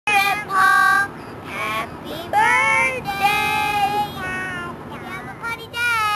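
Children singing together in high voices, with several long held notes and one rising glide.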